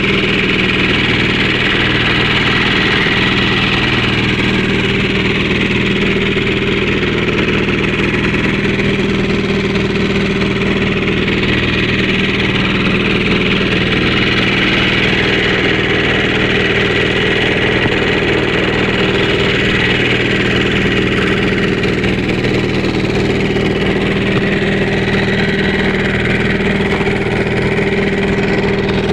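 A small fishing boat's engine running steadily while the boat is under way, an even, unchanging engine note.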